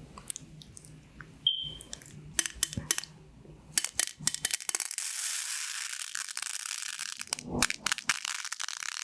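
Pins of a pin-art toy clicking against each other, then a long rattling slide of many pins at once lasting about three seconds, followed by more scattered clicks.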